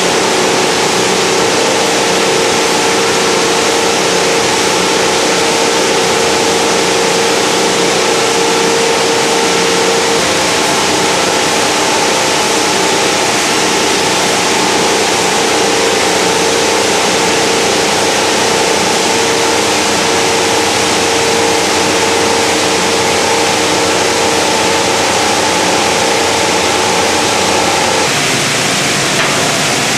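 Washing tank of a waste-plastic recycling line running: its water mill churning water and plastic flakes, with a steady motor hum underneath, loud and continuous. The hum changes about two seconds before the end.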